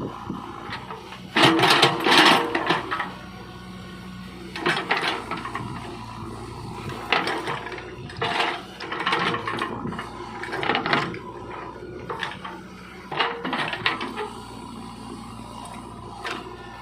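JCB 3DX backhoe loader's diesel engine running steadily, with bursts of loud metallic clatter and scraping every couple of seconds as the machine works; the loudest comes about a second and a half in.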